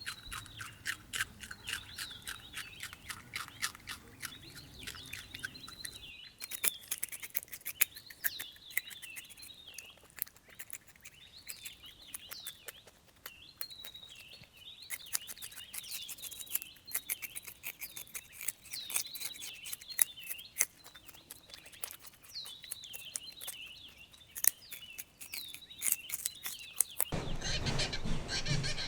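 A rabbit chewing, a fast run of small crunching clicks, with small birds chirping repeatedly in the background. Near the end a louder, rougher noise takes over.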